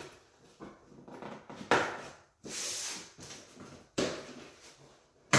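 Utility knife slitting the packing tape on a cardboard shipping box, and the taped flaps being pulled at: a few short, sharp rasping strokes and one longer rasp of under a second in the middle.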